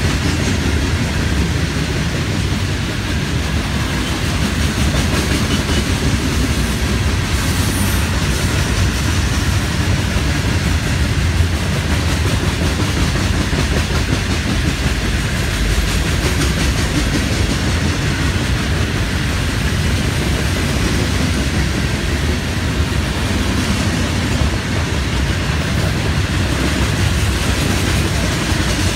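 Rock-laden open-top hopper cars of a long freight train rolling past steadily: a continuous rumble and clatter of steel wheels on the rails.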